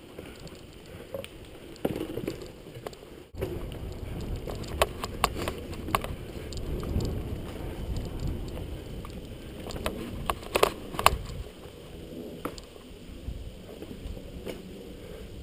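Mountain bike riding over a dirt trail: a steady low rumble of the ride with sharp rattles and knocks from the bike over bumps, a cluster about five seconds in and the loudest around ten to eleven seconds in.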